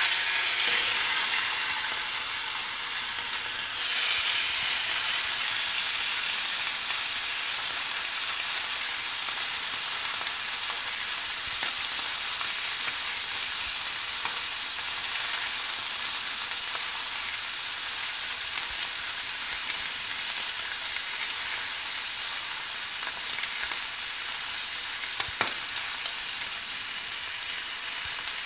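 Pork rib chops sizzling in oil on a hot flat griddle as they are seared. The sizzle starts suddenly as the first chop goes down, swells again about four seconds in as the second is laid on, then settles into a steady frying hiss.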